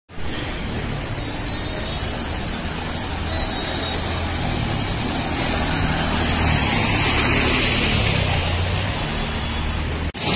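Motorbike and scooter engines running as they ride through a flooded street, with a steady hiss of water splashing under the tyres. The sound starts suddenly and cuts off near the end.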